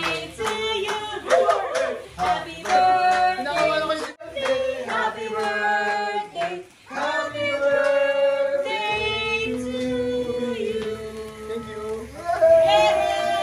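A group of voices singing a birthday song together, with long held notes.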